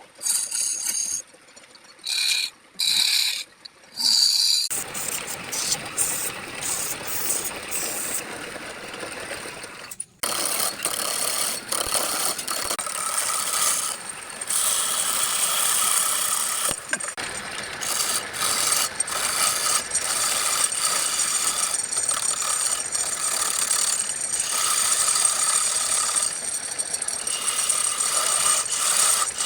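Wood lathe turning a workpiece while a turning tool cuts into the spinning wood: a steady grinding hiss with a high whine. It comes in short bursts at first, then runs continuously, with one brief break.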